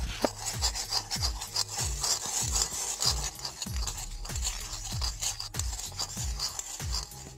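A metal spoon scraping and rubbing around a metal mixing bowl, stirring a thick sauce of ketchup, brown sugar and salt, in quick repeated strokes. Background music with a steady low beat plays under it.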